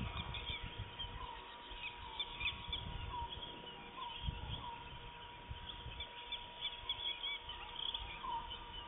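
Many small birds chirping and calling, with short rising calls repeated about once a second, over a steady faint high hum and a low rumble.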